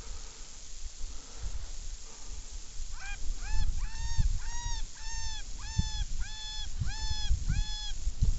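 A series of about ten short, evenly spaced pitched calls, about two a second, starting about three seconds in. Each call rises, holds its pitch and drops off. A low wind-like rumble runs underneath.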